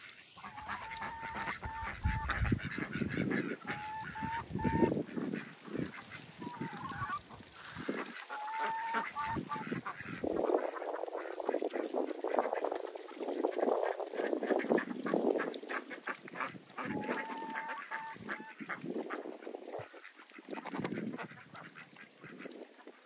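Farmyard fowl calling in several short runs of clipped, honking notes, with knocking and rustling noises in between.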